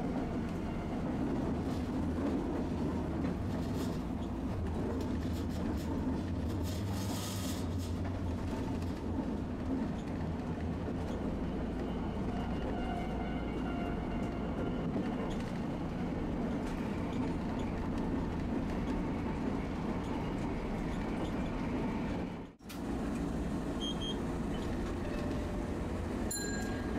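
Tosaden streetcar running, a steady rumble of motor and wheels on the rails heard from inside the car. The sound drops out for an instant about 22 seconds in.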